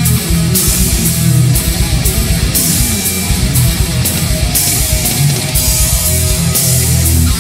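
Stratocaster-style electric guitar playing a fast heavy-metal intro over a backing track with drums. There are rapid low beats and regularly repeating crashing cymbals.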